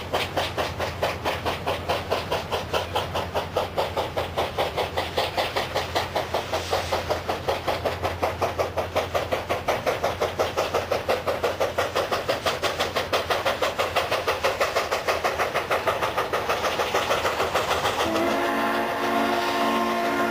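Frisco 1522, a 4-8-2 steam locomotive, working hard as it approaches, its exhaust chuffing in a fast, even beat that grows gradually louder. About two seconds before the end its chime steam whistle sounds one long blast over the chuffing.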